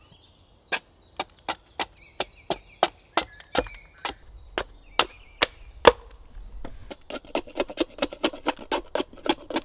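Small single-bevel axe chopping and trimming the edge of a green ash shingle held upright on a chopping block. Crisp, evenly spaced strokes come about three a second, then quicken to lighter strokes about five a second near the end.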